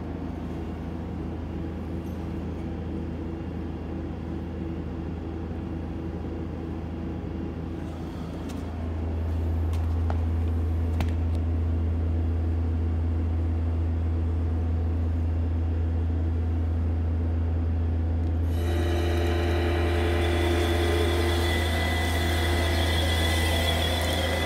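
1994 Toyo crystal pleating machine running: a steady low electrical hum, louder from about a third of the way in. About three-quarters through, a fuller mechanical noise from its turning rollers and drive, with a steady whine, joins the hum.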